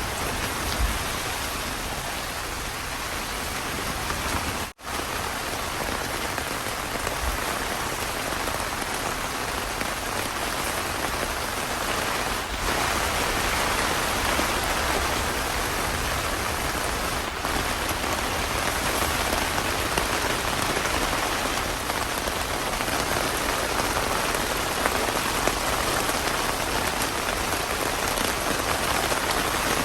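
Heavy rain pouring steadily, with a momentary gap about five seconds in and a slight swell in level from about twelve seconds.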